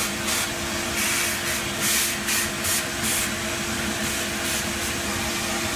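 Vacuum cleaner running through a long hose, with a steady hum under a loud rushing suction hiss. The hiss surges and eases several times as the nozzle is worked.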